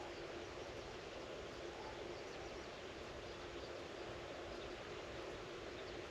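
Quiet rural outdoor ambience: a steady hiss of background noise with a faint, steady low hum and a few faint, short bird chirps.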